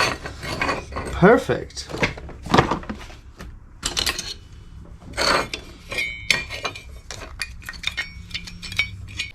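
Steel parts of a quick-release seat latch and its welded bracket clinking and clicking as they are handled and fitted together, with a few short metallic rings.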